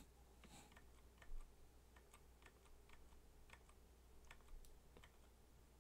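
Near silence with faint, irregular clicks of a computer keyboard and mouse, one slightly louder about a second in.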